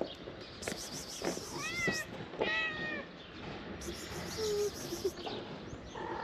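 Stray cat meowing: two meows about a second apart, the second one longer and louder. A lower, shorter call follows a couple of seconds later.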